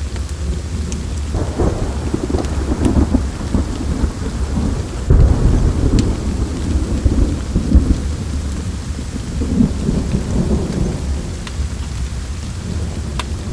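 Steady rain with rolling thunder rumbling low throughout, swelling suddenly about five seconds in. Scattered sharp crackles of a wood fire sound over it.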